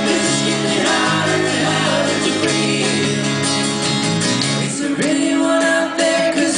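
Live acoustic music: strummed acoustic guitars with singing. The chords change about five seconds in.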